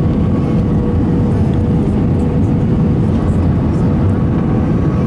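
Steady cabin noise inside an Airbus A320 on approach: the low drone of engines and airflow heard from a passenger seat, with a faint steady whine above it.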